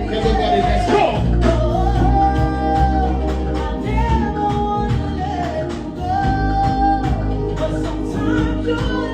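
Live band music with a singer holding long, wavering notes over heavy bass and drums.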